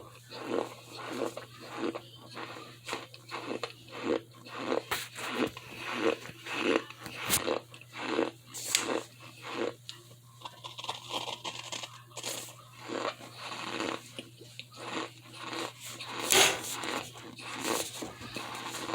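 Close-up crunching and chewing of cornstarch in the mouth, about two crunches a second. There is a short lull partway through and one louder crunch near the end.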